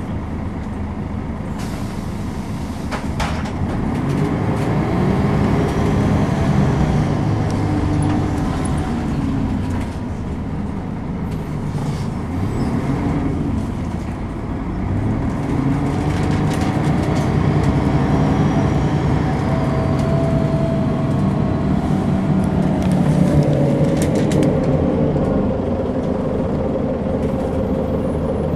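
Volvo B10BLE single-deck bus's rear-mounted six-cylinder diesel heard from inside the saloon, accelerating twice with the engine note climbing and dropping back at each gear change. A few clicks and rattles come from the body.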